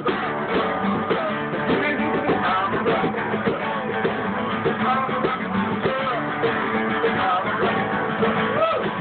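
A small acoustic string band playing live: a strummed acoustic guitar with an upright bass and another plucked string instrument.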